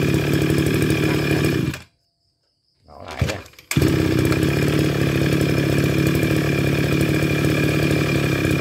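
Tanaka 368 brush cutter's 36 cc two-stroke engine running, shut off abruptly about two seconds in. After a short pause and a brief cranking sound it is restarted and runs steadily.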